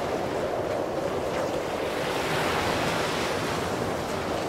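Surf breaking and washing up a sandy beach, with wind buffeting the microphone.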